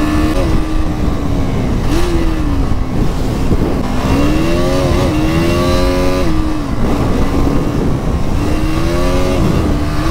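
KTM Duke 200's single-cylinder engine pulling under way, its note rising and dropping back several times as the throttle opens and closes, over a steady rush of wind and road noise.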